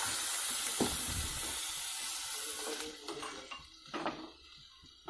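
Cubed cucumber sizzling in an aluminium pot, the sizzle dying away over the first three seconds as a little water has just been poured in. There is a knock about a second in and a few light scrapes of a wooden spoon being stirred near the end.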